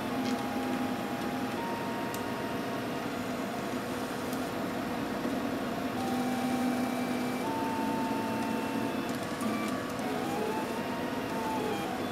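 RepRap Mendel Prusa 3D printer's stepper motors whining as the print head and bed move, the pitch jumping between steady tones every second or so and gliding up and down in arcs near the end.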